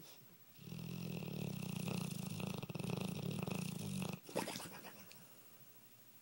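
Dogue de Bordeaux snoring: one long, low snore starting about half a second in and lasting about three and a half seconds, ending in a short sharp snort, then quiet breathing.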